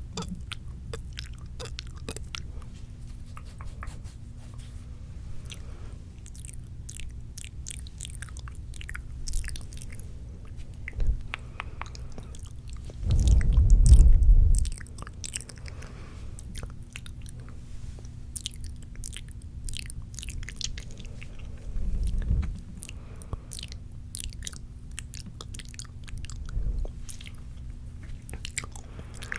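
Wet mouth sounds close to an ASMR microphone: many small sticky clicks and smacks of lips and tongue. About halfway through, a louder low rumble lasts about a second and a half, with a shorter one later.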